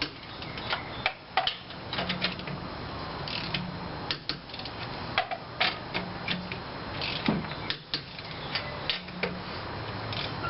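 Torque wrench ratcheting and clicking as the wheel's lug nuts are snugged down to 75 foot-pounds: a run of sharp, irregular metallic clicks.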